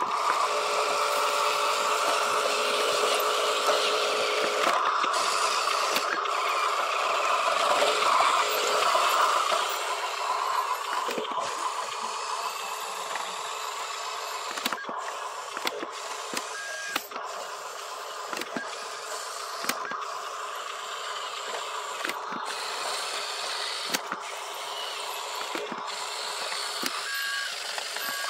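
Radio-controlled toy dump truck's small electric motors and gears whining steadily for about the first ten seconds, then running more quietly with scattered clicks. Short electronic beeps sound near the end.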